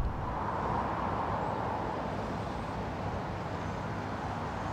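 A steady, even rushing noise with no distinct events, cutting off sharply at the very end.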